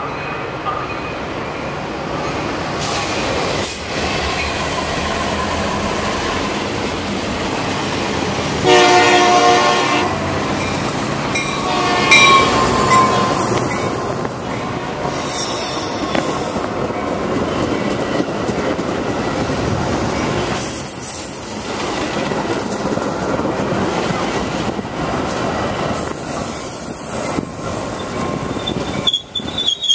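Metra commuter train pulling into the station: the locomotive sounds one horn blast of about a second and a half, about nine seconds in, then the bilevel cars roll past with repeated high wheel and brake squeals as the train slows.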